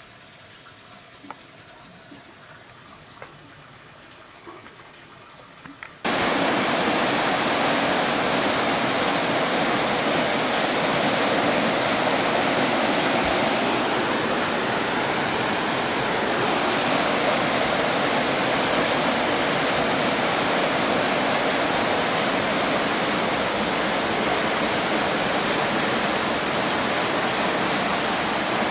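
Floodwater rushing down a street, a loud steady rush of fast-moving water that starts abruptly about six seconds in. Before that there is only a faint background with a few light clicks.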